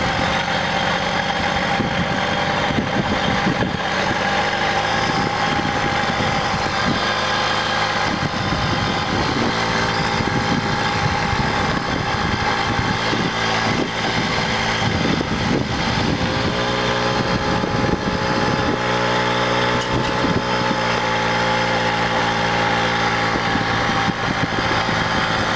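Stock 1978 JCPenney Pinto moped's small two-stroke engine running steadily under way, its pitch shifting slightly now and then, with frequent short knocks and rattles as the moped jolts over a rough trail.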